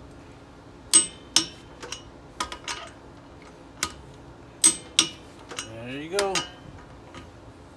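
Half-inch-drive click-type torque wrench clicking over on car lug nuts: sharp metallic clicks, mostly in pairs about half a second apart, twice loudly, with a few fainter ones between. Each click means the wrench has reached its set torque of 80 ft-lb.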